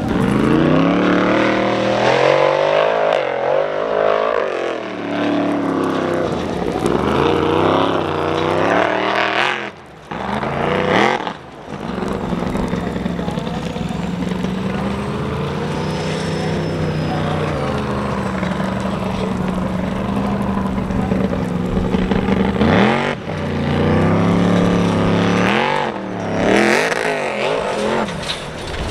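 Formula Offroad hill-climb cars' high-powered engines revving hard at full throttle up a steep dirt slope, the pitch rising and falling as the revs swing. The sound drops out briefly twice about ten seconds in, then holds a long steady high-revving run before more swings near the end.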